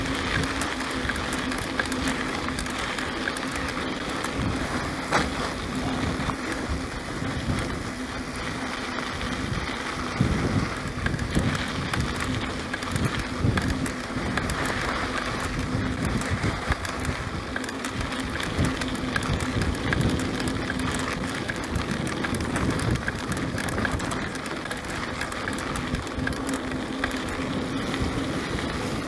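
Mountain bike rolling along a sandy dirt track: a steady rush of tyre and wind noise on the camera microphone, with frequent low rumbles and an occasional knock.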